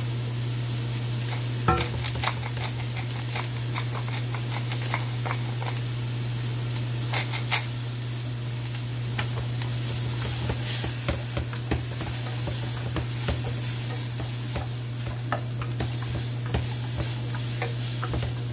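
Chopped carrots, onion and spices sizzling in a stainless-steel sauté pan as a wooden spatula stirs them, with frequent short scrapes and taps of the spatula against the pan.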